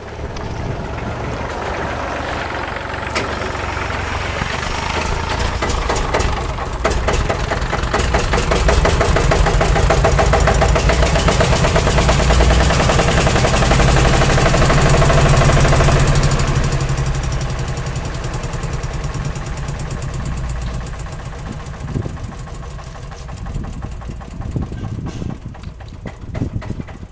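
An engine running with a fast, regular pulse, building over the first several seconds, loudest about halfway through, then easing off.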